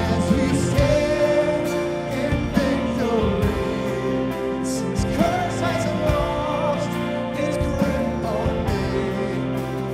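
Live worship band playing an instrumental passage with acoustic and electric guitars, a wavering melody line over sustained chords.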